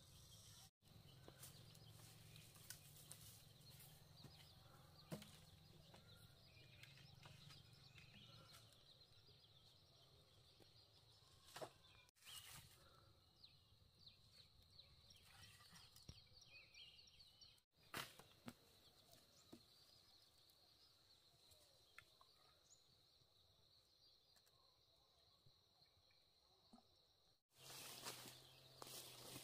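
Faint forest ambience: a steady high-pitched whine, a few bird chirps, and scattered light clicks and knocks from bamboo and sticks being handled.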